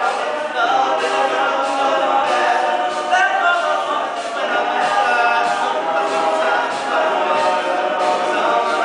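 Male a cappella group singing live: a lead soloist's voice over the group's backing vocals, with no instruments.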